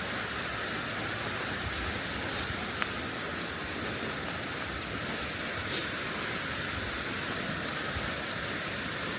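Steady rush of falling water from a waterfall, an even hiss that does not change. A small click about three seconds in.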